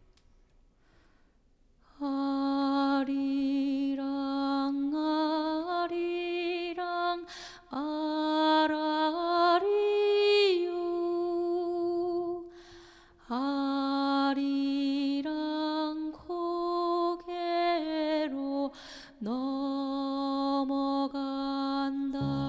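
A woman singing solo and unaccompanied in slow phrases of long held notes that step up and down, beginning about two seconds in.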